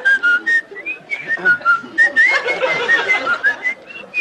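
A man whistling a tune without puckering his lips. It is a run of short, clear notes that hop up and down, with brief gaps between phrases.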